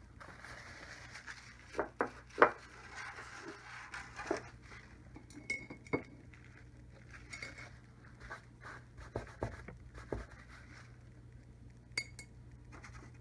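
Scattered light clinks and knocks of small hard objects, the loudest about two and a half seconds in, with a soft swishing during the first few seconds.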